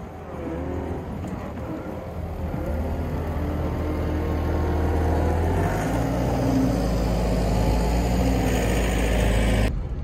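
A John Deere 325G compact track loader's diesel engine running as the machine drives up close. It grows louder over the first half, holds steady, and cuts off abruptly near the end.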